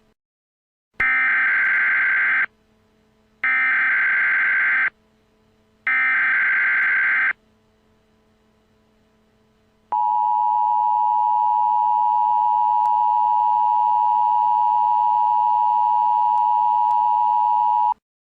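Emergency Alert System tones: three bursts of SAME digital header data, each about a second and a half long with about a second between them, then the steady two-tone EAS attention signal held for about eight seconds.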